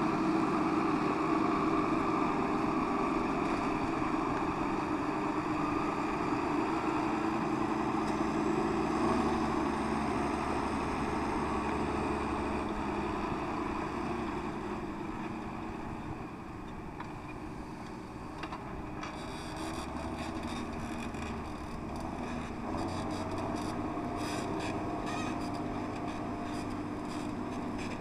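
Steady hum of a camera drone's motors and propellers, its pitch shifting slightly now and then. About two-thirds of the way through, wind starts buffeting the microphone in short gusts.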